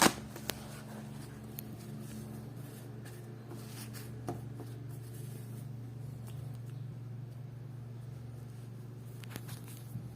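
Freshly sharpened Kai Shun damascus kitchen knife cutting a tomato: a sharp tap of the blade on the cutting board at the start, then a few faint scattered taps and cuts, over a steady low hum.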